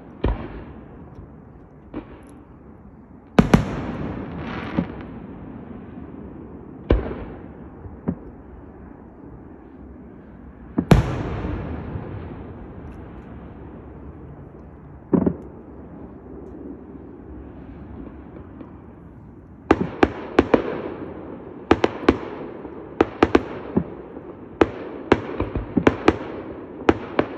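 Fireworks display: single aerial shell bursts a few seconds apart, the bigger ones trailing off in an echoing rumble. About two-thirds of the way through, a rapid run of many bangs begins in quick succession.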